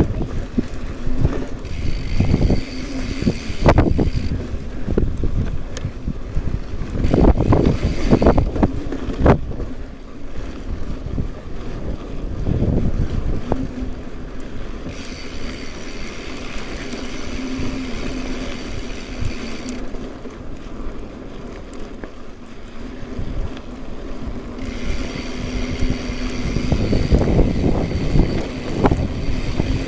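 Wind buffeting the microphone in irregular low gusts and thumps while moving along a dirt trail, with a steady buzz that comes and goes.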